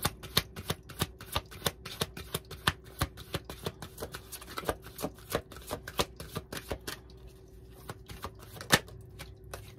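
A tarot deck being shuffled by hand, the cards slapping against each other in quick strokes about three or four a second. The shuffling stops about seven seconds in, and near the end comes a single sharper card snap.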